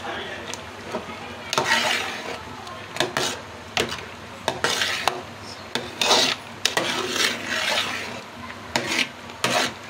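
A steel ladle stirring semolina halwa as it cooks in sugar syrup in an aluminium pot, scraping and knocking against the pot's sides and bottom in irregular strokes about once or twice a second. The stirring is kept up without a stop so the thickening semolina doesn't stick to the bottom.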